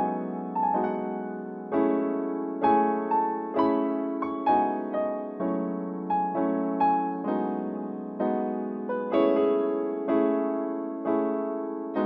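Electric piano playing a slow, repeating pattern of chords, each struck and then fading, as the instrumental intro of a song.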